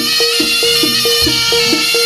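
Javanese gamelan music accompanying a Bantengan dance. A fast, repeating figure of short pitched struck notes, about five a second, plays over percussion.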